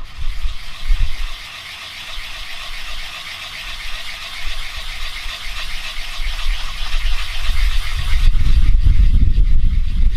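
Small cast metal ingot rubbed back and forth on sandpaper, a steady rhythmic scratching. From about eight seconds in a loud low rumble covers it.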